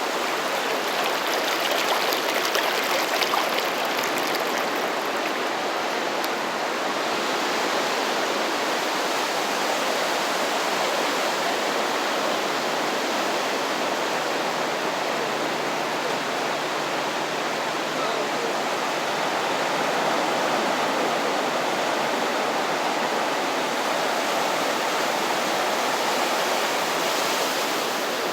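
Gentle waves from a calm sea breaking and washing up the shore: a steady rushing wash, a little louder and hissier about two to four seconds in.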